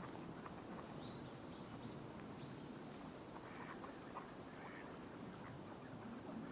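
Wild birds calling at a waterside: a run of four short, high rising notes in the first half, then fainter, lower calls around the middle, over a steady low background noise.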